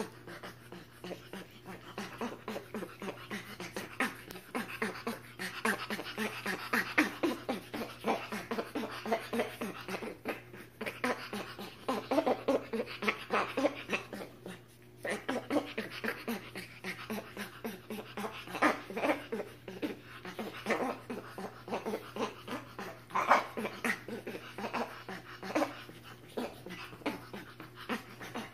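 Spider monkeys calling: a continuous run of short, high squeaking calls, several a second, with louder calls here and there.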